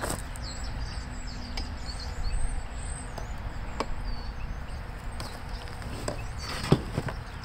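Screwdriver and the plastic housing of an Echo PB-500H backpack blower being handled on a table: a few scattered clicks and knocks, the sharpest near the end, over a steady low background noise with faint bird chirps.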